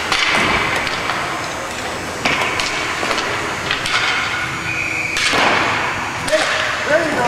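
Hockey game sounds in a rink: scattered clacks and knocks of sticks and puck against the boards, skate noise, and players shouting, which grows stronger near the end.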